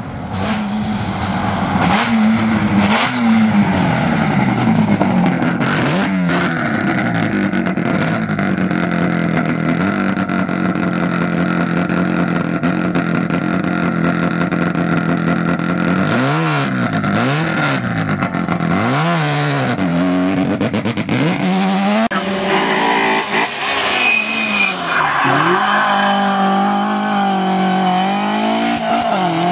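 Rally car engine driven hard, its pitch climbing and dropping again and again through gear changes and lifts. It holds a steady high note for several seconds in the middle.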